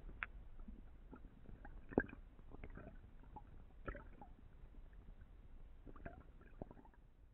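Muffled underwater sound picked up through a camera housing: a steady low rumble with scattered knocks and clicks from a diver moving and handling his speared fish, the sharpest knock about two seconds in.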